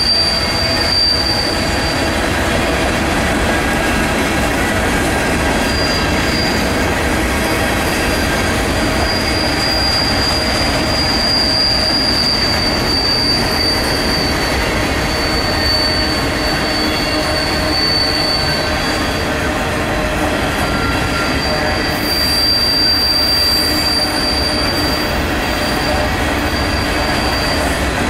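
Covered hopper cars of a freight grain train rolling past, a continuous rumble of steel wheels on rail with a high, steady wheel squeal that comes and goes, dropping out briefly about two-thirds of the way through.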